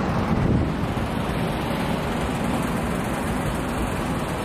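Wind buffeting the microphone: a steady rushing rumble, heaviest in the low end.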